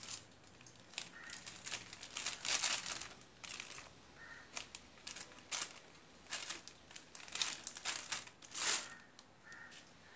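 Crinkling and rustling of the white insulating strips as hands twist and wrap them around a toroidal transformer's lead wires, in irregular bursts.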